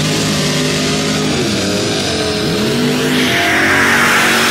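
Mud racing pickup truck's engine at full throttle down a dirt track, pitch climbing, dropping back once as it shifts and climbing again. It ends in a loud rush as the truck passes close by.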